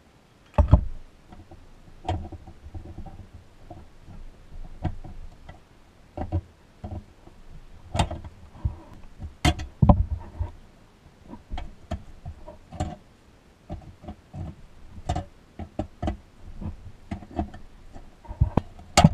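Irregular knocks, clicks and light clatter as a vintage Tonka toy truck's pressed-steel chassis and wheel-and-axle assembly are handled, turned over and set down on a carpeted workbench.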